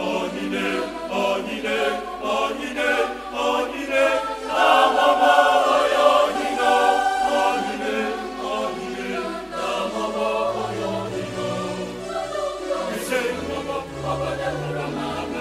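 Mixed choir singing in parts with electronic keyboard accompaniment. The singing is fullest and loudest about five to seven seconds in, and low bass notes come in from about ten seconds.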